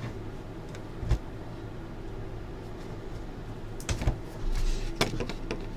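Quiet room hum with a few light clicks and knocks of trading cards and boxes being handled on a table, one about a second in and a cluster around four to five seconds in.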